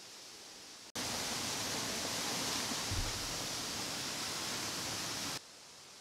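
Steady rush of a waterfall, a loud even hiss that starts abruptly about a second in and cuts off abruptly near the end, with a brief low bump about three seconds in. Fainter hiss on either side.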